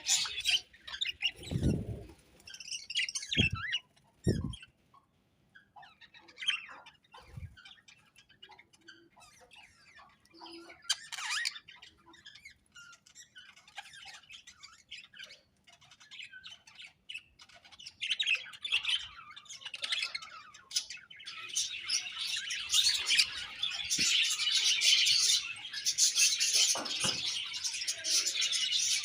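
A colony of budgerigars chirping and chattering together. The chatter thins to scattered calls for several seconds, then swells back into a dense chorus from about 18 seconds in. A few low thumps come near the start.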